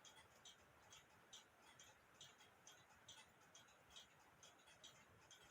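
Faint, steady ticking of a running clock, a few ticks a second, over near-silent room tone.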